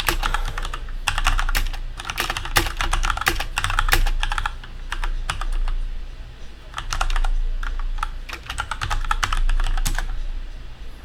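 Typing on a computer keyboard in quick runs of keystrokes with short pauses between them, as a message is typed out.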